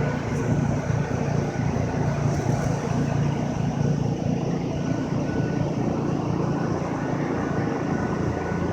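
A steady engine-like hum with a constant noise over it, running unchanged throughout.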